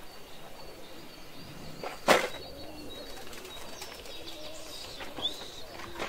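Domestic pigeons cooing softly, with faint high chirps of other birds. About two seconds in there is a single loud, sudden noise.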